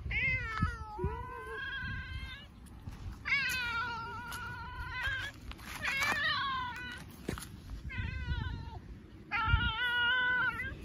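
A tabby cat meowing again and again: about six long, drawn-out meows one after another, several falling in pitch at the end.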